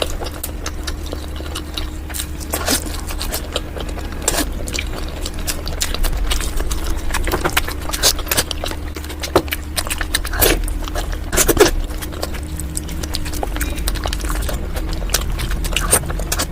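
Close-miked chewing and mouth sounds of someone eating mutton liver: irregular clicks and smacks, several louder ones in the middle, over a steady low hum.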